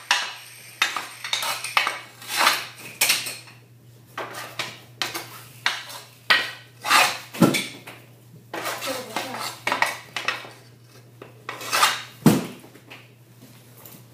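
Hockey stick blade clacking repeatedly against a concrete garage floor and the puck while stickhandling and shooting, in an irregular run of sharp hits. Two heavier thumps stand out, about halfway through and near the end.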